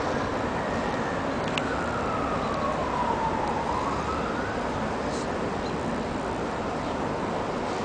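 Emergency vehicle siren wailing in slow rising and falling sweeps, fading out about halfway through, over a steady hiss of city traffic noise.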